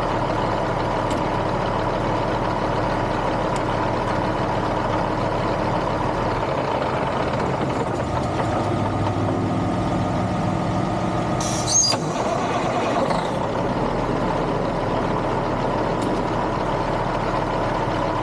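Freightliner semi truck's diesel engine idling steadily after a roadside repair, with one short sharp burst about two-thirds of the way through.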